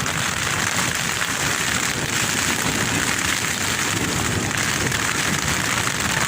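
Strong wind buffeting a tent, heard from inside, with the fabric and stretched rain fly shaking and rustling in a steady rush.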